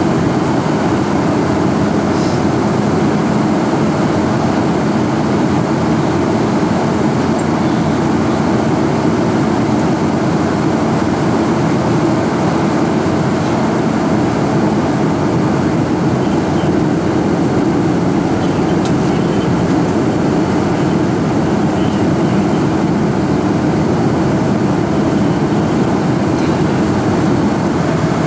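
Steady cabin noise of a Boeing 747 airliner in flight: the even rush of airflow and the jet engines' hum heard from inside the cabin, unchanging throughout.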